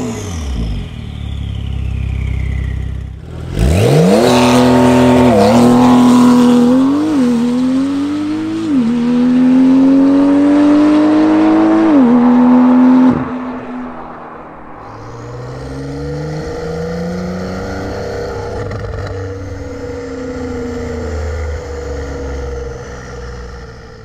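Porsche 992 Carrera GTS flat-six running through an aftermarket Fi Exhaust valved exhaust. It rumbles low for the first few seconds, then pulls hard through the gears, the note climbing and dropping back at each upshift about four times. It then eases off to a quieter, wavering note that fades away at the end.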